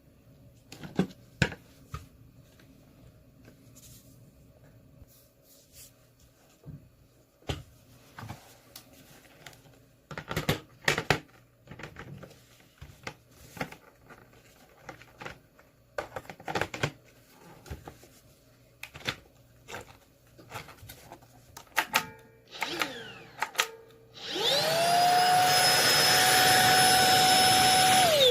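Plastic parts of a cordless stick vacuum clicking and knocking as they are fitted together. Near the end the vacuum's motor is switched on, rises within a second to a steady high whine with airflow rush, and is switched off.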